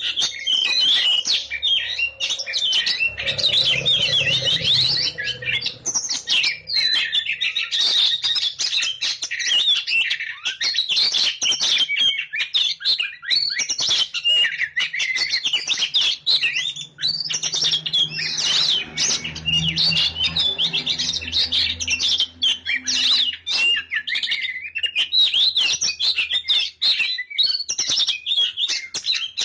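Magpie-robin (kacer) singing continuously and vigorously: a rapid, varied stream of loud whistled phrases and chirps with hardly a pause.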